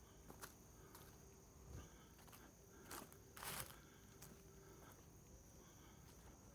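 Near silence with faint outdoor ambience: a steady high whine, scattered small clicks, and one short rustling burst about three and a half seconds in.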